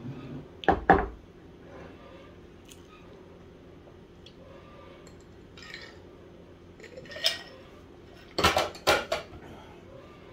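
Dishes and cutlery clattering: two sharp clinks about a second in, then a quick cluster of knocks and clinks near the end.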